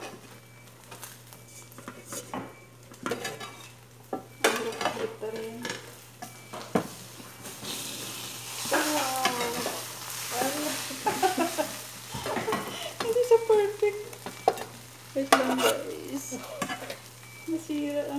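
Carrot omelette sizzling in oil in a frying pan while a metal spatula scrapes and clacks against the pan as the omelette is flipped and turned. The sizzling is loudest about eight to twelve seconds in.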